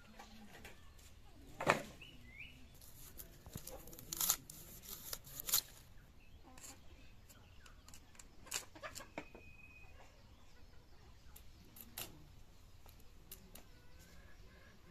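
Scattered sharp snaps and knocks, among them the crisp cuts of a hand knife taking florets off a raw cauliflower head, with a few short bird calls in the background.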